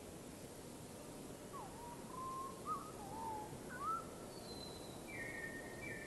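Birds calling: a run of whistled notes that swoop up and down, followed by a few higher, shorter notes near the end, over a steady background hiss.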